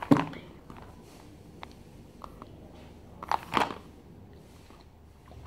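Eating a small hard candy: faint clicks, with two short crunching noises about three and a half seconds in.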